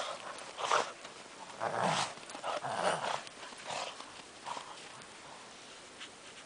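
Two small dogs playing in deep snow: irregular crunching of paws through the snow mixed with a few short dog vocalisations, dying down after about five seconds.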